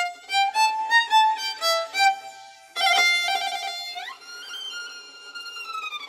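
Solo violin playing the opening phrase taken from an oriental magpie robin's song: a run of quick short notes, a brief pause, then longer notes, an upward slide and a long held note that dips slightly at the end.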